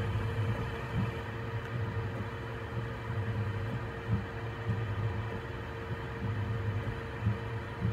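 Voron 3D printer running mid-print: a steady fan hum with a constant tone, over an uneven low whirring that swells and dips as the print head moves.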